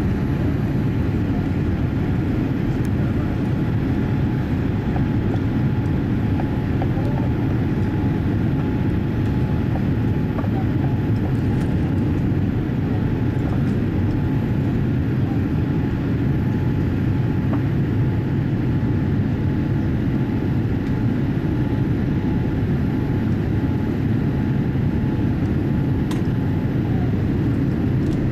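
Steady cabin noise of a Boeing 787-8 in its climb after takeoff: engine and airflow rumble heard from inside the cabin, with a faint steady whine that stops near the end.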